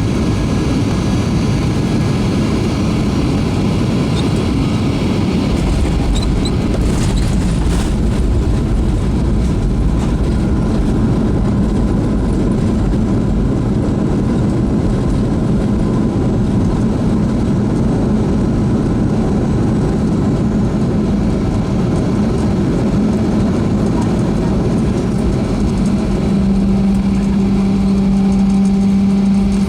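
Cabin noise of a Boeing 737-300 rolling on the ground, its CFM56 jet engines at low power: a steady low rumble under an engine hum. A steady hum grows louder near the end.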